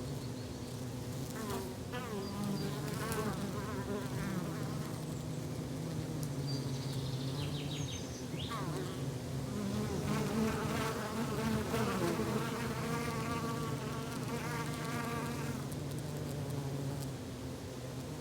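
Forest ambience dominated by a steady insect buzz, like bees or flies hovering, with higher wavering chirps and trills over it, busiest in the second half.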